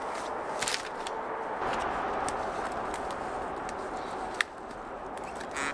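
Dead wooden branches knocking and twigs snapping as a long pole is handled, with a sharp crack a little past four seconds in. Underneath is the steady hum of highway traffic.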